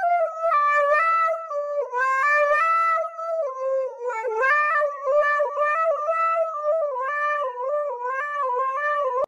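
Husky howling into a handheld karaoke microphone: a long, wavering, song-like howl whose pitch steps up and down, broken by short pauses for breath.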